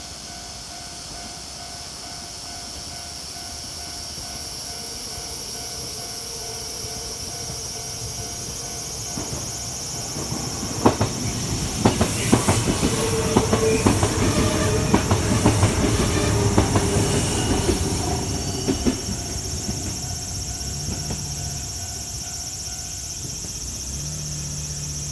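Kintetsu Yoshino Line train passing over a level crossing: it comes in steadily louder, its wheels clack over the rail joints for about ten seconds in the middle, then it fades away. The crossing's warning bells ring through most of it.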